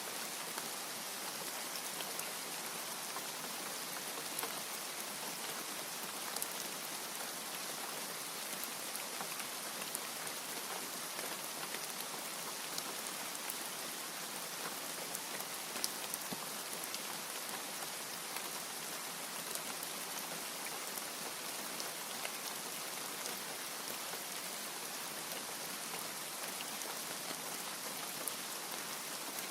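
Steady rain, an even hiss with scattered sharp drips and ticks of individual drops. No thunder.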